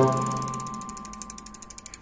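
Bicycle freewheel ratcheting as the crank is turned by hand, a rapid train of pawl clicks that slows toward the end. A decaying piano note from background music sounds over the start.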